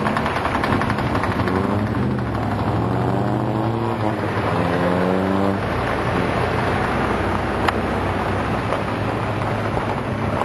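Off-road truck engine revving: its note climbs in pitch in a couple of pulls through the first half, then drops away into a steady rough rumble.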